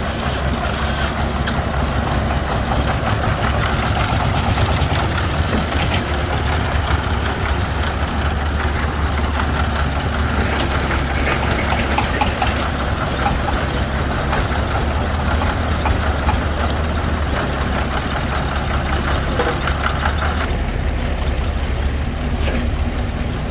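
Heavy diesel truck engines running and idling steadily, with the low engine note changing about twenty seconds in.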